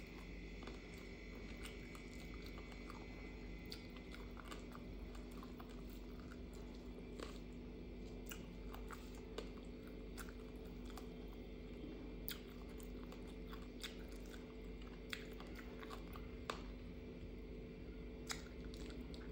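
A person chewing rice and curry eaten by hand, with scattered sharp mouth clicks and smacks over a faint steady hum.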